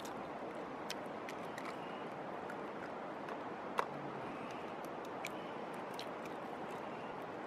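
Steady rushing background noise with scattered faint clicks and pops, and one sharper click about four seconds in.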